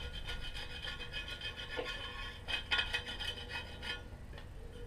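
Wire brush scrubbing a wheel part in quick repeated strokes, a scratchy rasping that is strongest in the middle and eases off near the end.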